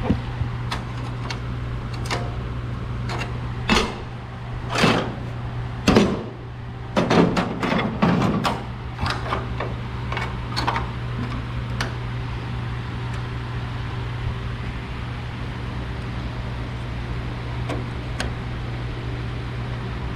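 Sheet-metal body panel being handled and test-fitted: a run of sharp clanks and scrapes of thin metal through the first half, over a steady low hum, which then continues alone.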